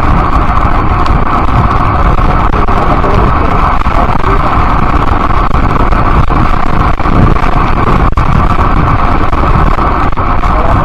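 Steady, loud rush of wind on the microphone mixed with tyre and road noise from riding along a paved street.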